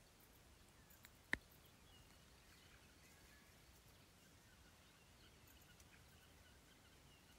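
Near silence of quiet bush with faint, scattered bird calls, broken about a second in by one sharp click.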